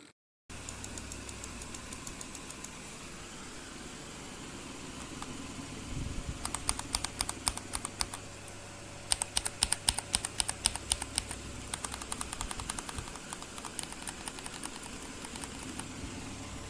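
Gateron mechanical keyboard switches being typed on: bursts of quick keystroke clicks, densest in two runs near the middle and lighter toward the end, over a steady low hum.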